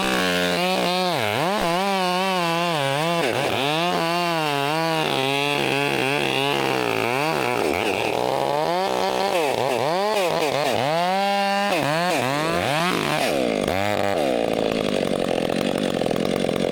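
Chainsaw cutting through a cherry tree section, its engine pitch repeatedly dipping under load and picking back up as the chain bites. About 14 seconds in it settles into a steadier run.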